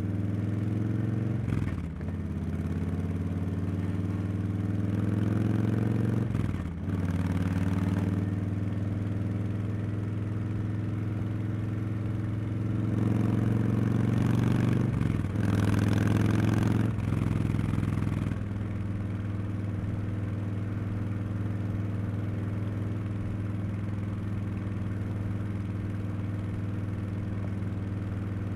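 Harley-Davidson Street Bob 114's Milwaukee-Eight V-twin running through Cobra Neighbor Hater slip-on mufflers while riding. It rises in pitch several times, with brief drops in between that sound like gear changes. From about two-thirds of the way in it settles to a steady, quieter run.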